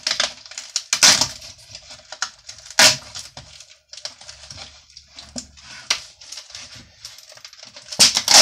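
A cut side panel and its textured covering being ripped off a small bathroom shelf by hand: irregular tearing and crackling, with sharp rips about a second in and about three seconds in. Near the end there is a louder clatter as the shelf is tipped over.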